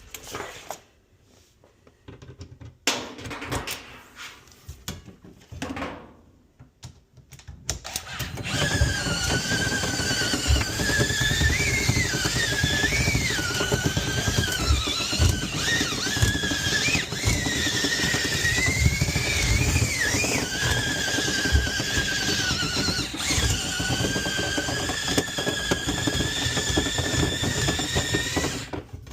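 Scattered knocks and clicks, then about eight seconds in a power tool's electric motor starts and runs for some twenty seconds. Its whine wavers up and down in pitch, as under changing load, until it stops just before the end.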